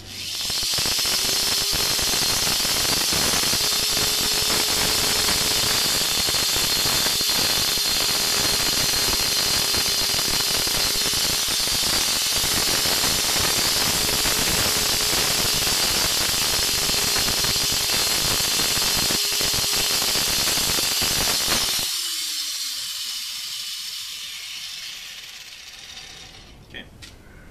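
Electric angle grinder running at full speed as it grinds down the end of an ABS plastic pipe. About 22 seconds in it is switched off, its pitch sliding down as the disc winds down over a few seconds.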